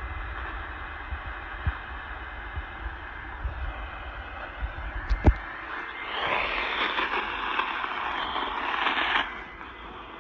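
Steady hiss of radio static with no voice on the channel, swelling louder for about three seconds past the middle before dropping back, with a few low thumps in the first half.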